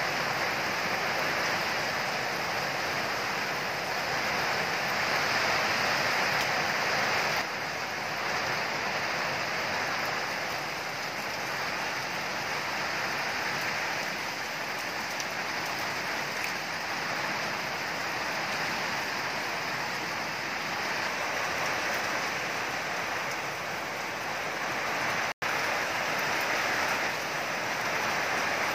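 Steady rain falling on leafy plants, an even wash of sound. It drops a little in level about a quarter of the way through and cuts out for an instant near the end.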